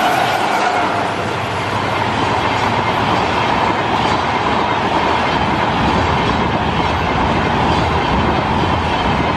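Passenger train coaches passing at speed, a loud steady noise of wheels running on the rails.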